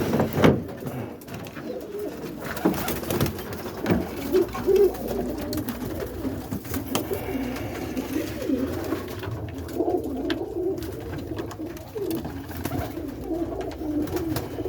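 Domestic pigeons cooing continuously in a loft, several birds at once, with scattered small knocks and clicks.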